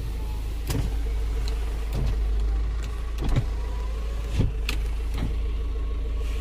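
Switch clicks and the faint whir of a car's small electric motor as the power side mirror is adjusted, over a steady low hum.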